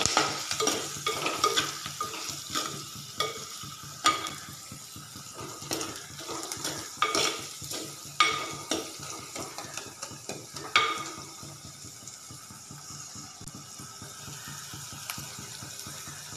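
A steel spoon stirring and scraping against a clay pot of onions and spices frying in oil, over a steady sizzle. The scraping strokes come about twice a second and stop about eleven seconds in, leaving only the sizzle.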